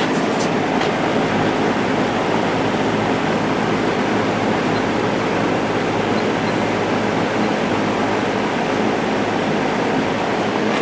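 JCPenney 9711 box fan with a 3.1 amp General Electric motor running on high speed: a loud, steady rush of air with a faint low hum underneath.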